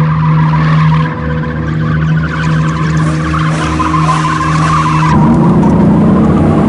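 BMW 1 Series M Coupé drifting, its tyres squealing loudly over the engine; about five seconds in the squeal drops away and the 3.0-litre twin-turbo straight-six's note rises.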